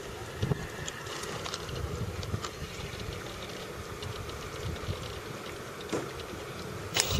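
Wind rumbling unevenly on the camera microphone over a steady outdoor hiss, with a few sharp clicks, the loudest about seven seconds in.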